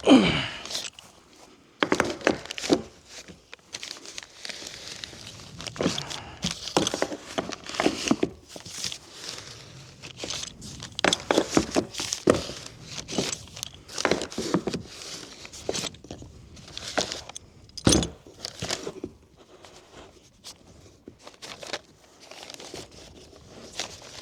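Plastic spigot and valve fitting of an IBC tank being worked loose and unscrewed by hand: irregular scraping, creaking and clicking of the fitting and tank, with a loud falling swish at the very start.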